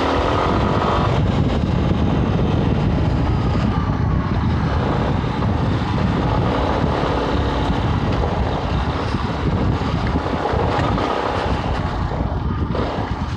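Wind buffeting the camera microphone over the Yamaha Ténéré 250's single-cylinder four-stroke engine as the motorcycle rides a dirt track. The wind rumble is the loudest sound, and the engine note rises and falls near the start and again about ten seconds in.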